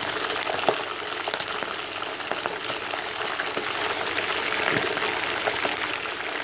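Raw chicken pieces deep-frying in hot oil in a stainless steel pan: a steady sizzle with scattered pops and crackles.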